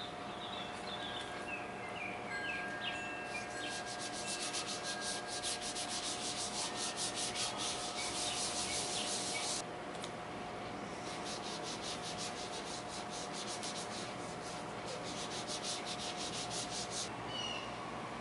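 Hands rubbing briskly back and forth over blue masking tape on a brass sheet, smoothing it flat in quick, even strokes. The rubbing comes in two spells, with a short pause about ten seconds in.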